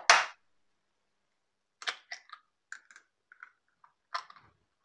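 A hen's egg struck sharply against the rim of a stainless steel bowl, then a scatter of small crackles and clicks as the shell is broken open over the bowl.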